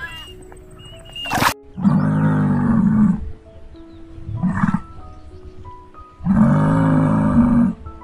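Three deep, rough bellows from a musk ox: a long one about two seconds in, a short one in the middle and another long one near the end. Soft background music runs underneath, with faint bird chirps in the first second.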